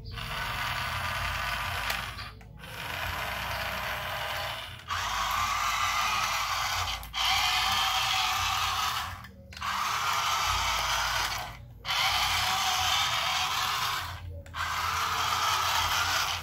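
Remote-control toy dump truck's small electric motor and gearbox whirring as it drives, in runs of about two seconds with short stops between them, about seven times over.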